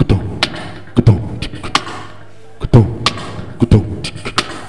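A man beatboxing a drum beat into a handheld microphone, imitating a drum kit. Deep, falling kick-drum booms alternate with sharp snare-like clicks, roughly two hits a second.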